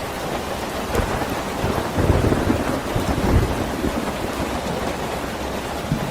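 Steady rain with a low rumble of thunder that swells about a second in and is loudest about halfway through.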